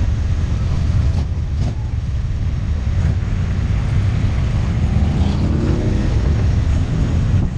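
Motorcycle engines rumbling low and steady, heard from a moving motorcycle. About five seconds in, one engine revs up, rising in pitch.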